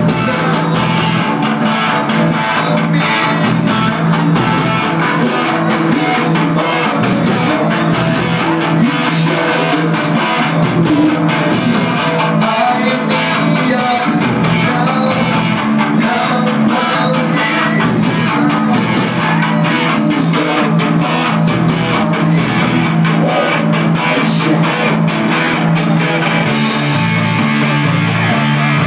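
Live rock band playing loudly and without a break: electric guitar, bass guitar and drums, with frequent drum hits.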